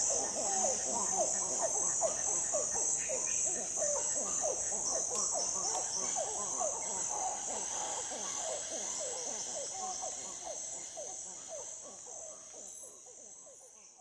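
Night chorus of frogs and insects: many short, falling frog calls overlapping, several a second, over a steady high insect trill. The chorus fades out over the last few seconds.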